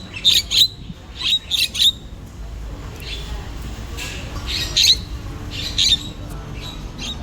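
A bird squawking: short, sharp calls in clusters of two or three, with pauses of a couple of seconds between clusters, over a low steady rumble.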